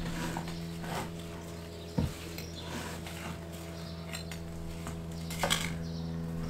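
Steady drone of a light aircraft's propeller engine passing overhead, with sharp knocks and clinks of gardening tools, the loudest about two seconds in and a few more near the end.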